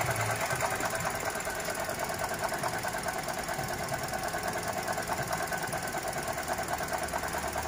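Toyota 1NR-VE four-cylinder engine idling with a rapid, steady ticking rattle: the abnormal noise the mechanics trace to the alternator, which they suspect comes from its shaft.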